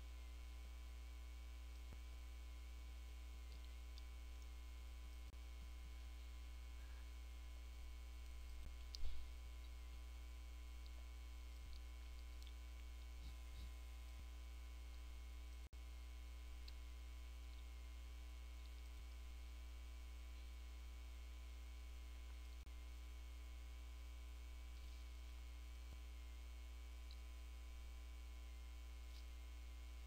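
Steady low electrical mains hum from the recording chain, with a few faint scattered clicks and one sharper click about nine seconds in.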